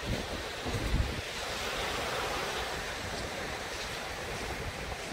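Small waves washing steadily onto a sandy beach, with wind rumbling on the microphone, strongest about a second in.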